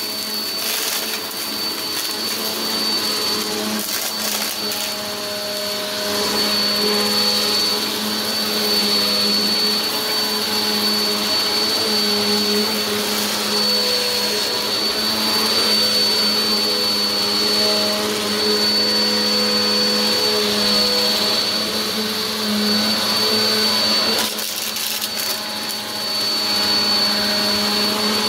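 Black+Decker bagless upright vacuum running over carpet: a steady motor hum with a constant high whine, and a few brief ticks near the start and again about 24 seconds in.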